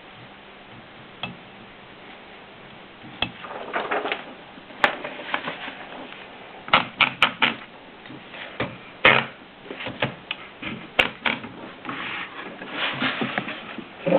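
Royal Model P typewriter being worked, its typebars and mechanism clacking. After a single click, the clacks start about three seconds in and come irregularly, some in quick runs of three or four, with a rattling clatter between them.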